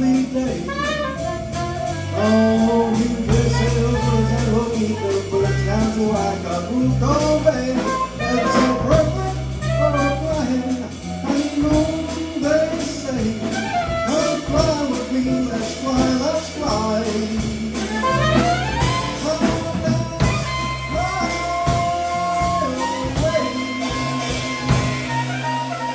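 Small jazz band playing live: soprano saxophone over keyboard, electric bass and drums.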